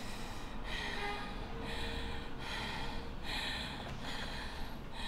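A woman breathing hard and fast in distress, about six short, gasping breaths in quick succession.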